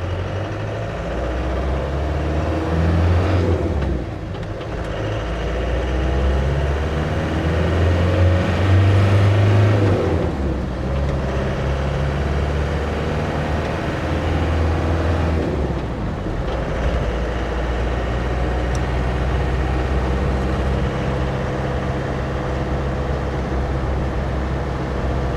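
Land Rover Defender 110's 300Tdi 2.5-litre four-cylinder turbodiesel driving and accelerating under boost. The engine note breaks briefly about four, ten and sixteen seconds in as it changes up through the gears. It pulls on a newly replaced turbo boost line, which the driver feels gives better boost.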